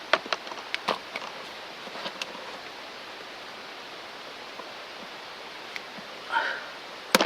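Scattered light clicks and a brief rustle of hands handling a hose freshly wrapped in vinyl electrical tape, over a steady hiss, with a sharper click near the end.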